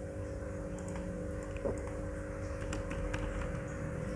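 A few faint, scattered computer keyboard keystrokes and mouse clicks, most of them in the second half, over a steady low electrical hum.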